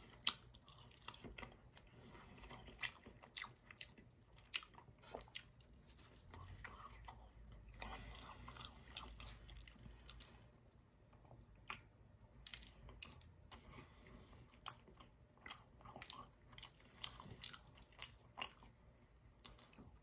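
Faint close-up chewing of a sausage, egg and cheese biscuit roll-up, with many small wet mouth clicks and smacks scattered throughout.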